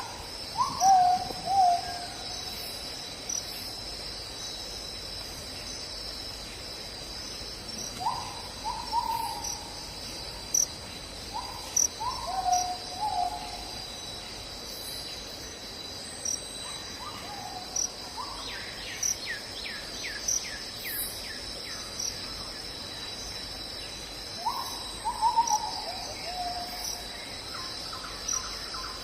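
Night insects and crickets trilling steadily, with a night animal, perhaps an owl, giving short falling calls in about five separate bouts. A quick run of clicking calls comes about two-thirds of the way through.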